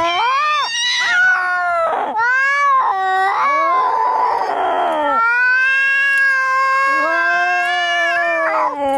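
Angry cats caterwauling as in a fight: long, wavering yowls one after another, with a harsh hiss about four seconds in.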